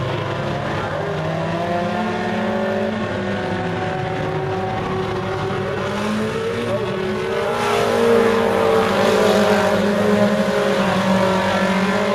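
A pack of Super Stock four-cylinder dirt-track race cars running hard around the oval, several engine notes overlapping and rising and falling in pitch. They get louder a little past halfway as the cars come through the turn close by.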